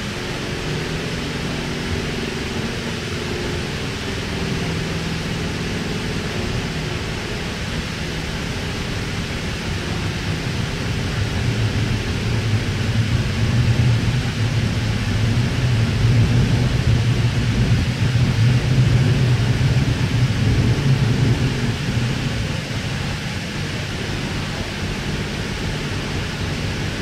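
Interior running noise of a K-set electric train carriage under way: a steady rumble of wheels on rail with a low motor hum. It grows louder through the middle, with the hum strongest, and eases off again towards the end.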